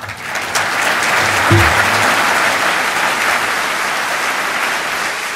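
Audience applauding after a speech, starting at once and holding steady, then easing off slightly toward the end.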